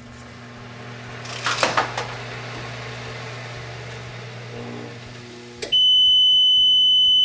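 Broaster Instant Burger cooking a patty: a low steady hum with a burst of hissing about a second and a half in that slowly fades. Near the end the hum stops and a loud, steady high-pitched beep starts: the machine's automatic shut-off signalling that the cook cycle is done.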